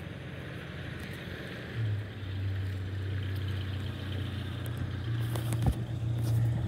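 Engine of a USPS Grumman LLV mail truck running at low speed close by: a steady low hum that grows louder from about two seconds in as the truck pulls up to the mailbox. A single sharp knock near the end.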